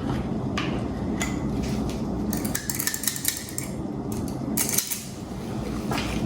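A metal utensil clinking and scraping against a dish, in a few scattered knocks and a short run of scrapes near the middle, as toppings are spooned onto a plate, over a steady low hum.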